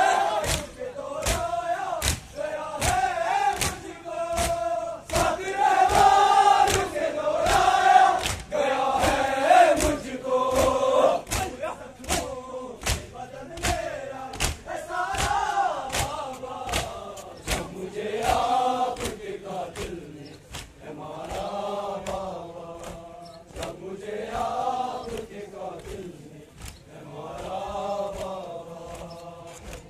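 Crowd of men chanting a Muharram nauha lament in unison, with sharp slaps of rhythmic chest-beating (matam) keeping a steady beat about twice a second. The chanting is louder in the first half.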